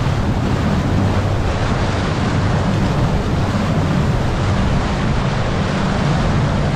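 Bass boat running steadily at speed under outboard power: a steady engine drone under the rush of water along the hull and wind buffeting the microphone.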